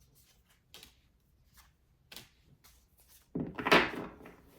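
Tarot cards being handled: a few soft taps and clicks, then about three seconds in a louder rustling shuffle of the deck lasting about a second.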